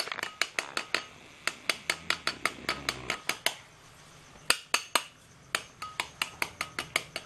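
Kitchen knife tapping the shell of a raw duck egg in quick, light clicks, about four a second, cracking it around the middle. The tapping pauses briefly a little after halfway, then resumes.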